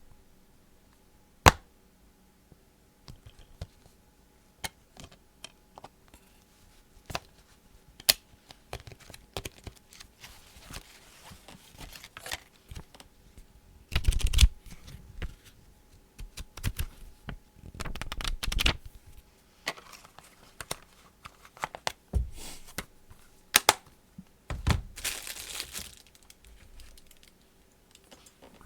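Mouth noises made close to the microphone: irregular clicks, pops and wet crackles, with a sharp louder click about a second and a half in and several longer crackling bursts later on.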